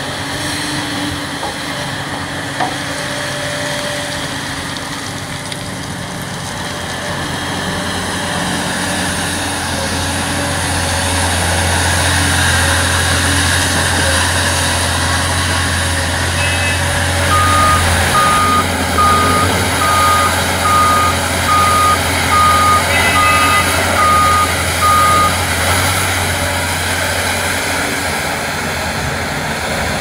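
Heavy diesel earthmoving machinery running steadily: a large Hitachi hydraulic excavator working with a dump truck alongside, its low engine drone growing stronger through the middle. Partway through, a reversing alarm beeps evenly, about ten beeps over eight seconds.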